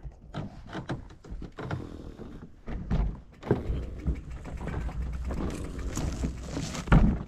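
Fat bike on a wooden boardwalk: irregular knocks and thunks as the tyres roll over the planks, with a louder thump near the end.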